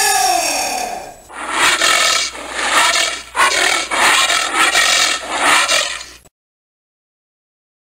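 Giant anteater calling: one drawn-out call that rises and falls in pitch, then a run of rough, raspy calls that stop abruptly.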